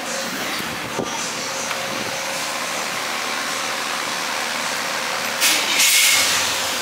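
Steady rushing noise with a faint steady hum, a small click about a second in, and a short, loud burst of hiss about five and a half seconds in.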